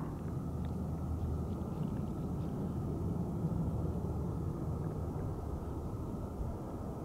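Steady low rumble of a distant jet aircraft.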